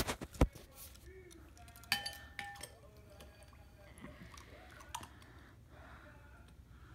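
Clicks and light knocks of a small diecast toy car being handled in a ceramic bowl. Two sharp knocks come at the very start, and a brief ringing clink about two seconds in sounds like the car striking the bowl.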